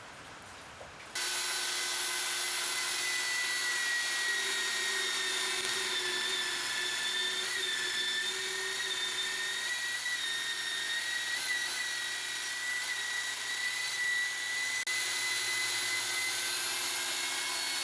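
High-speed rotary cutting tool whining steadily as it cuts a lengthwise slot into a 3/8-inch steel rebar. It starts suddenly about a second in and runs at a near-constant high pitch that wavers slightly under load.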